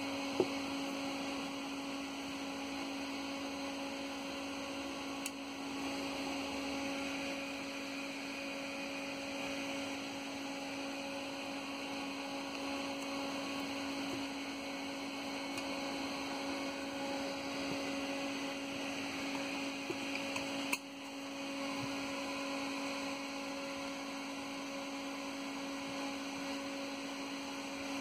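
Steady electrical hum, one low tone with a fainter higher one above it, with a few faint clicks, the clearest about 21 seconds in.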